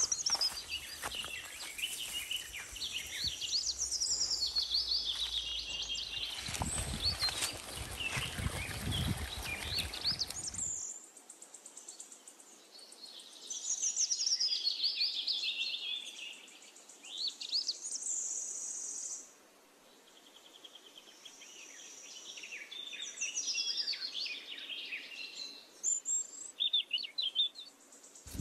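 Birds chirping and calling, with many short notes sliding up and down in pitch. A low rumble runs under them for the first ten seconds or so, strongest just before it stops.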